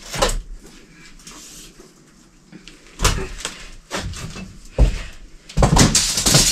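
Old carpet being ripped up off a bus floor: a few tearing, scraping pulls, with the longest and loudest near the end.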